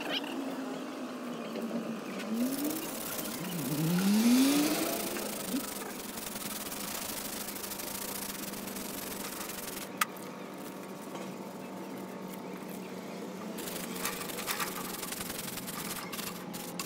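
Hands and a flat wooden stick rubbing and scraping over the metal casing of a truck gearbox. About four seconds in, a brief rising hum like an engine revving is the loudest sound, and there is a single sharp click about ten seconds in.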